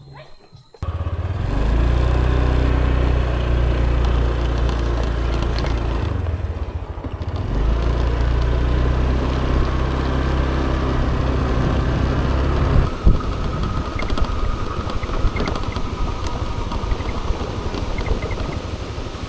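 Moped engine running steadily while being ridden, its note shifting about halfway through. After about 13 s a broader rushing noise, likely wind, takes over.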